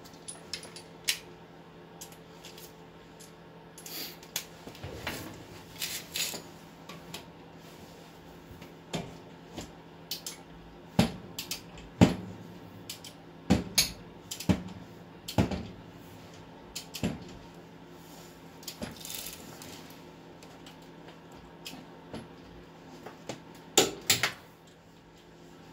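Sockets and hand tools clinking and clanking as they are handled and fitted at a car's wheel hub: irregular sharp metal knocks, with a cluster of louder ones near the end, over a faint steady hum.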